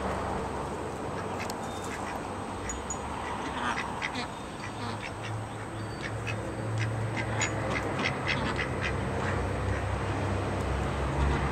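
Welsh Harlequin and Ancona ducks quacking as they forage on weeds, the calls busiest in the middle stretch, over a low steady hum.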